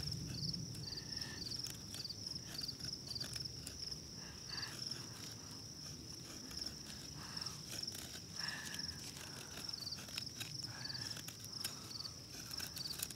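Full convex-ground knife blade shaving fatwood into curls: a run of short, dry scrapes and clicks. Under it, insects trill steadily with repeated short chirps.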